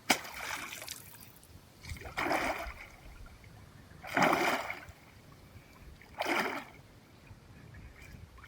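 Water splashing in four separate bursts about two seconds apart, the first one sudden and sharp.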